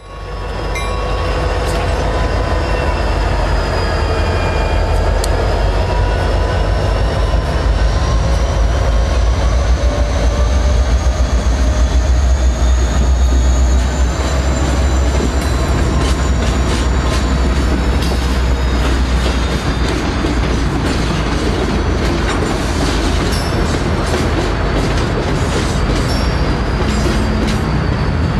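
Diesel-hauled train moving on the tracks: a heavy low rumble with high wheel squeal tones that waver slowly through the first half, then a run of clicks from the wheels over rail joints.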